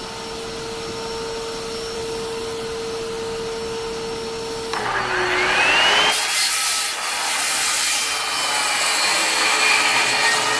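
Shop vac running steadily; about five seconds in a DeWalt circular saw spins up with a rising whine, and the vac's pitch dips briefly under the saw's startup draw on the shared battery power station. The saw then cuts through a wooden board, louder than the vac.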